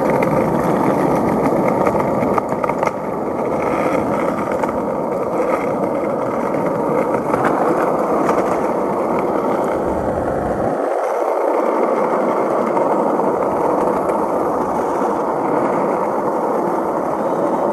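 Skateboard wheels rolling fast down a rough asphalt road: a loud, steady rolling noise, with the low rumble dropping away briefly about eleven seconds in.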